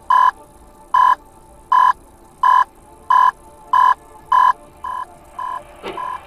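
Electronic beeping: a single pitched beep repeating about every three-quarters of a second. From about five seconds in the beeps become shorter and quieter.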